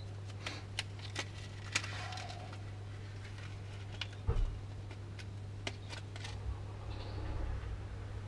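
Light scattered clicks and rustles of hands handling small rig parts (a crimp and monofilament line), over a steady low hum, with one dull thump about four seconds in.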